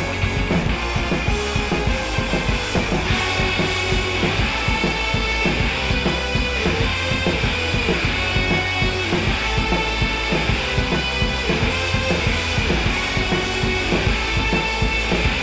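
Rock music with drums and guitar, at a steady beat.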